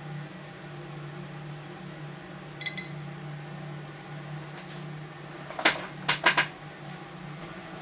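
Solder fume extractor fan running steadily with a low hum while it draws off smoke. A little past halfway, four sharp clicks in quick succession.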